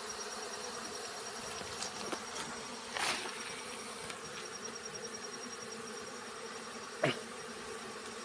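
Honey bees buzzing steadily in a swarm around the opened hive. A brief rustle about three seconds in and a sharp click near the end.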